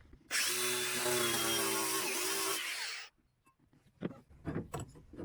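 A handheld power tool runs steadily at full speed for about three seconds, then cuts off suddenly. A few light knocks follow near the end.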